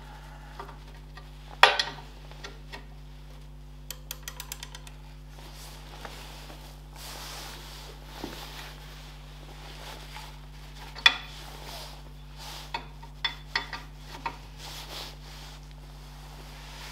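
Steel spanner and socket wrench clicking and clinking on a bolt as it is tightened, with a quick run of about six ticks around four seconds in and a sharp loud click about eleven seconds in. A steady low hum lies underneath.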